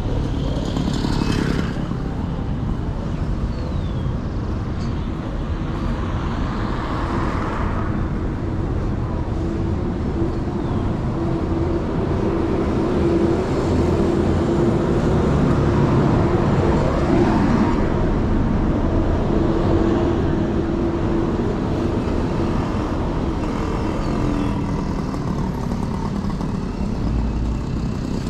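City street traffic: motor vehicles passing, with a steady engine hum through the middle stretch and a brief rise and fall in pitch partway through.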